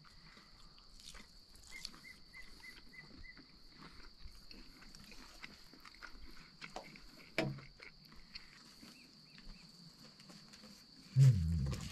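Crickets chirping steadily, with a few small clicks and handling noises. Near the end comes one short, loud, low guttural sound.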